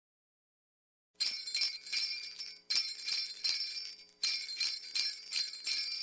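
Jingle bells shaken in a steady rhythm, in three short runs of jingling after about a second of silence: the bell intro of a Christmas pop song.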